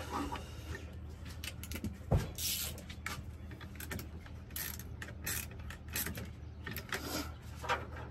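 Irregular metallic clicks and clatter of hand tools and parts being handled as a part is fitted back on the truck, with one sharper knock about two seconds in.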